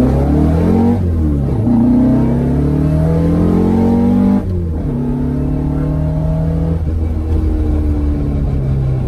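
Air-cooled VW Beetle flat-four breathing through a 4-into-2-into-1 exhaust, accelerating, heard from inside the cabin. The revs climb, dip at a gear change about a second in, climb again, then fall off sharply at about four and a half seconds and run steadier after that.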